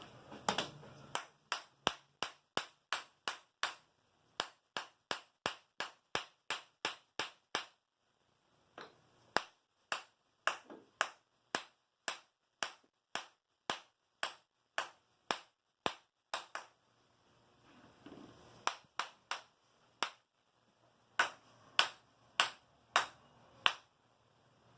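A long series of sharp, short clicks with a slight ring, evenly paced at about three a second, coming in runs broken by short pauses.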